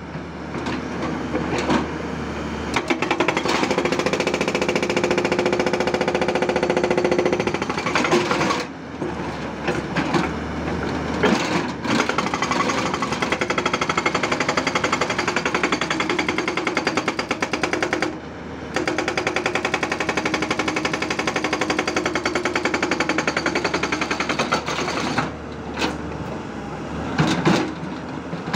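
Hydraulic rock breaker on a Tata Hitachi 200 excavator hammering in a rapid, continuous rattle over the excavator's diesel engine. It stops briefly a few times and starts again.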